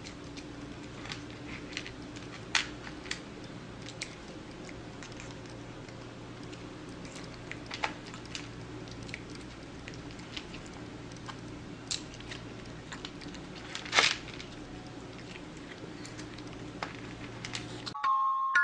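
Long-haired cat chewing food it is being hand-fed: scattered small crunches and clicks over a steady low room hum, the sharpest about 2.6 s and 14 s in. Right at the end, music with bell-like glockenspiel notes starts.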